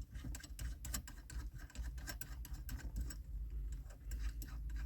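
Irregular small clicks and taps as a shift knob and its thread adapter are handled and fitted onto a car's gear lever, over a low steady hum.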